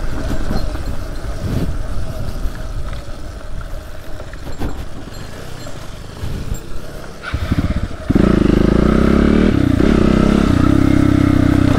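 Off-road motorcycle engine running, with a few sharp knocks. About eight seconds in it becomes much louder and holds steady.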